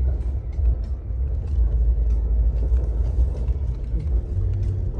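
Vehicle driving on a dirt road: a steady low rumble of engine and tyres, with frequent small clicks and rattles.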